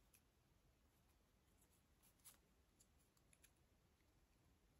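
Near silence, with a few faint clicks of thin wire and plastic leaves being handled on a wooden hoop, the clearest about halfway through.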